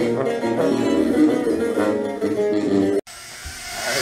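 Guitar-led music with plucked strings that cuts off abruptly about three seconds in, leaving a quieter hiss that rises toward the end.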